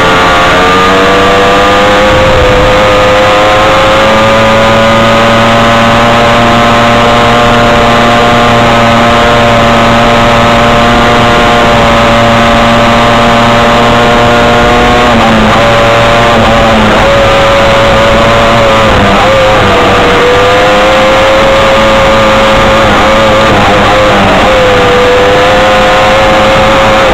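Honda Odyssey off-road buggy's engine running hard at a fairly steady high pitch on a dirt trail, loud and close to the microphone, with a few brief dips in revs past the middle of the run.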